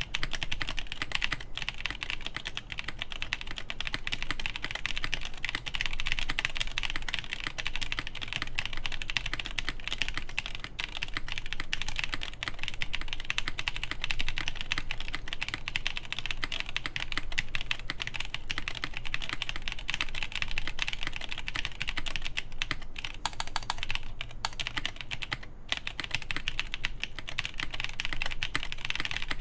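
Continuous typing on a plateless Pontus 21xx mechanical keyboard with Durock Ultramarine V2 switches and GMK Dolch keycaps: a dense, fast stream of key clacks, with a few brief pauses near the end.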